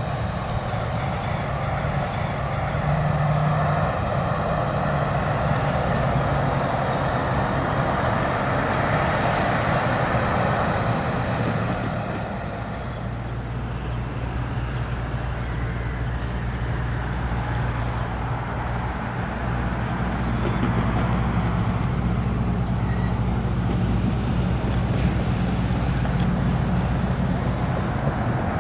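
Steady road traffic noise with a low engine rumble underneath.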